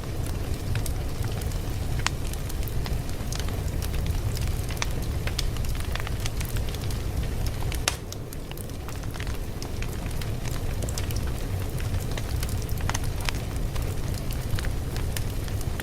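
Fire crackling: irregular sharp pops and snaps over a steady low rumble, with a short quieter stretch about halfway through.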